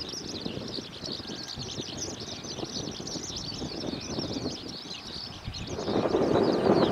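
Many small birds chirping rapidly and continuously, over a low outdoor rumble. About six seconds in, the rumble of a jet airliner's engines grows louder.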